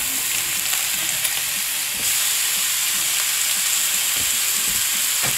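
Ribeye steaks sizzling steadily in a hot, oiled frying pan as they are turned over with tongs; the sizzle gets a little louder about two seconds in.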